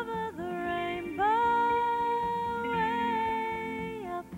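Music: a woman singing long, held wordless notes over a soft, sustained backing.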